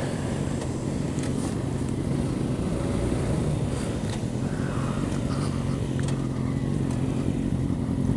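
Motorcycle engine running steadily under way, a constant low hum with road noise.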